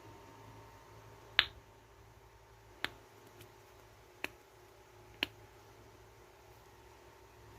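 Finger pop trick: four sharp, short pops made with the fingers, about a second and a half apart, the first the loudest.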